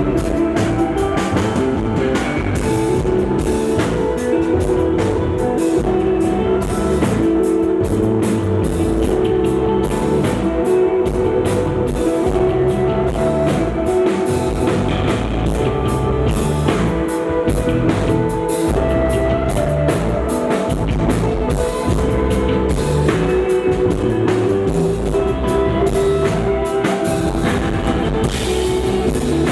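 Live rock band playing: electric guitar with held, ringing notes over bass and a steadily played drum kit, with no singing.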